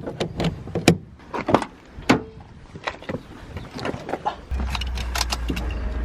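Clicks, knocks and rattles of a portable jump starter and its clamps being handled and connected to a car battery. About four and a half seconds in, a steady low rumble starts and carries on.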